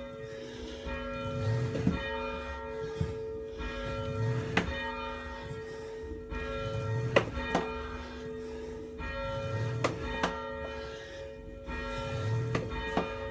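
Church bell swung by its rope, ringing continuously with its hum and overtones sustained and freshly struck at an even pace about every two and a half seconds, with a few short knocks.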